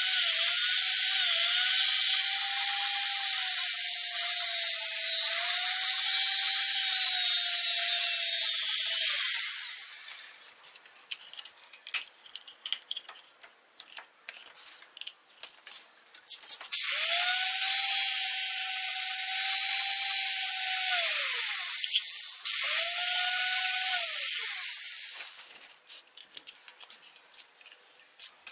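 Angle grinder cutting a slot into PVC pipe: a steady high motor whine with a harsh hiss of the disc on plastic, lasting about nine seconds before it stops. After a stretch of light clicks and rattles from the pipe being handled, the grinder runs again for about five seconds, stops briefly, and runs for two more seconds.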